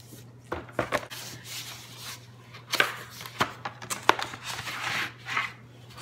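Wooden puzzle boards being handled, with several sharp knocks as the boards strike and slide against each other, and rustling of their plastic wrap.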